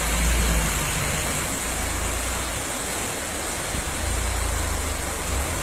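Steady rushing noise of a flooded river, with a low rumble underneath.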